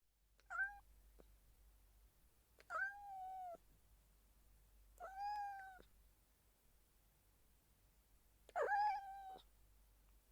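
Domestic cat meowing softly, four separate meows a couple of seconds apart, each about half a second to a second long.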